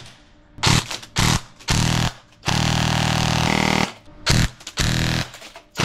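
Custom DSG (dual-sector-gear) airsoft electric rifle firing on full auto at a plastic mask. It fires a string of short bursts, with one longer burst of about a second near the middle, and each burst cuts off sharply.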